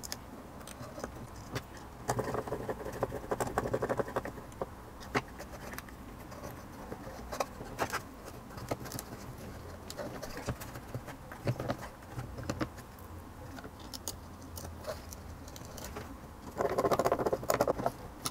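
Small clicks, taps and scraping of screws, hand tools and parts as a motor is mounted and fastened in place. There are two longer stretches of rapid scraping, a couple of seconds in and near the end.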